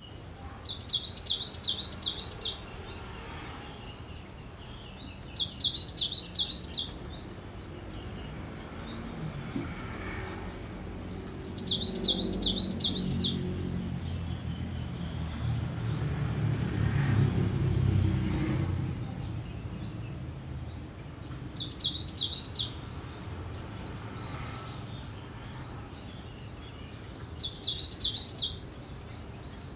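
Cinereous tit (gelatik batu) singing. It gives five short bursts of rapid, repeated high notes, each a second or two long, with faint single calls between them. A low rumble swells and fades in the middle.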